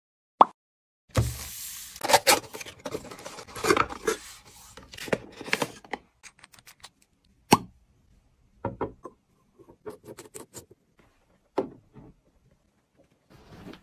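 Close-up handling of household objects. First comes a few seconds of rustling and knocking, then scattered sharp clicks and taps as things are picked up and set down.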